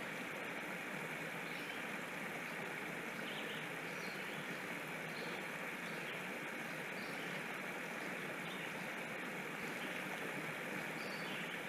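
Steady, even outdoor background hiss, with a few faint, brief bird chirps now and then.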